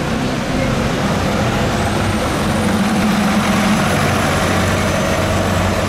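A full-hybrid city bus drives past and away, its engine running with a steady low hum. About two seconds in, a thin high whine from the drive rises in pitch as the bus gathers speed.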